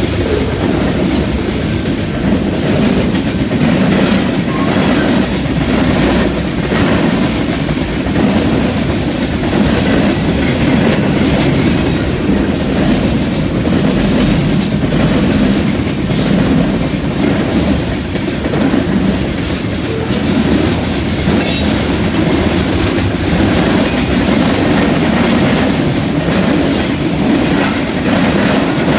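Freight train cars (tank cars and flatcars) rolling past close by at steady speed: a loud, continuous rumble of steel wheels on rail, with scattered clicks as the wheels cross rail joints.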